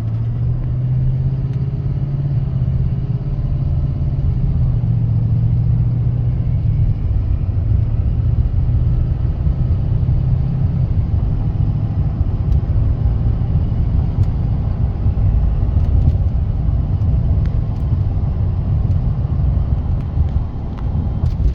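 6.6 L Duramax L5P turbodiesel in a GMC Sierra 3500HD, fitted with a Banks Ram-Air cold air intake, pulling through an easy acceleration. It has a low tone, with the turbo and the intake drawing air audible under a steady drone.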